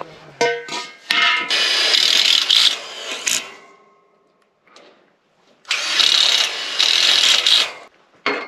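Work on a galvanized steel carport frame: steel tubing clanks and rings briefly, then two harsh, rasping stretches of about two seconds each, the second after a short quiet gap.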